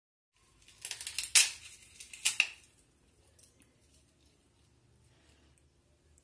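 Metal spoon clicking and scraping against a plate as rice is mixed, with crisp papad crackling as it is broken up. A quick run of sharp clicks, loudest about a second in and again about two seconds in, then only faint ticks.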